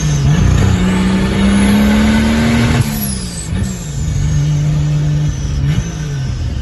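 Chevrolet Opala's turbocharged 4.1-litre straight-six accelerating hard, its engine note and a high turbo whistle rising together. Both drop sharply at a gear change about three seconds in, then the engine pulls again and shifts a second time near the end.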